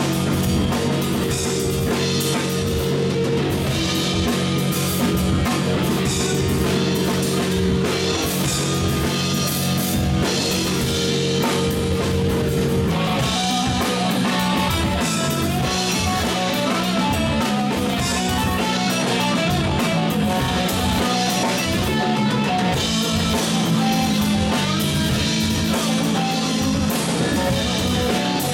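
Live rock band playing an instrumental passage on electric guitar, electric bass and drum kit. The held guitar and bass notes move to a new pattern about halfway through.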